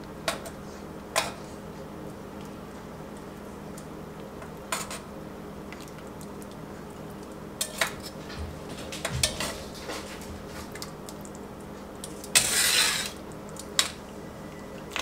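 Metal kitchen tongs clinking and knocking against a cast-iron Dutch oven as chicken pieces are lifted out of the broth: scattered sharp clicks, with a longer clatter of about a second near the end.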